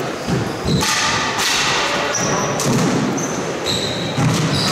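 Squash rally: the ball is struck by rackets and thuds off the court walls several times, with short high squeaks of sports shoes on the wooden court floor.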